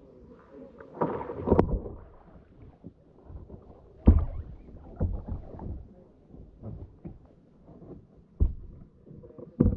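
Water splashing and slapping against a kayak's hull close to the microphone, in several separate splashes, the loudest about a second and a half in and about four seconds in.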